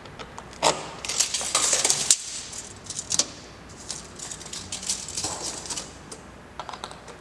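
Sheet metal roofing panel being handled and measured: scattered light metallic clinks and rattles, with a short scraping hiss about a second in.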